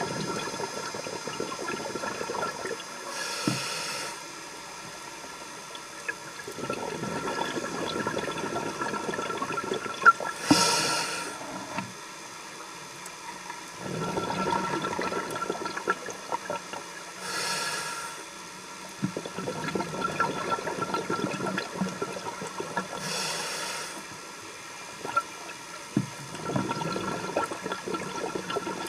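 A scuba diver breathing through a regulator underwater: a short hiss of inhalation about every six or seven seconds, four times, each followed by a few seconds of bubbling, crackling exhalation.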